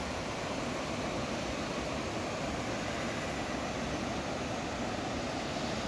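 A fast stream rushing steadily, its current surging.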